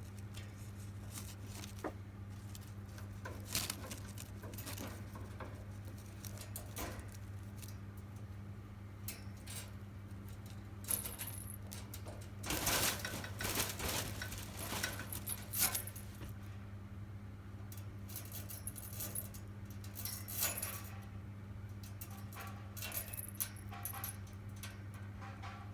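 Scattered light clicks and metallic clinks and rattles of a degu moving about and handling things in its cage, busiest about halfway through, over a steady low electrical hum.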